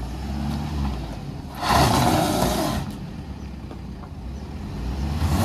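Force Gurkha SUV's diesel engine driving off slowly over a rocky riverbed: a low, steady engine drone, with a louder, rougher surge about a second and a half in that lasts about a second.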